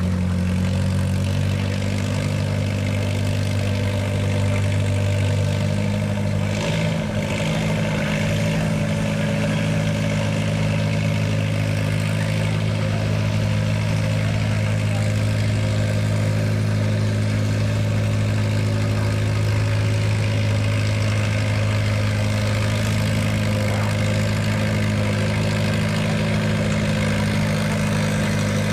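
Farm tractor engine running loud and steady at a near-constant pitch, pulling the weight transfer sled.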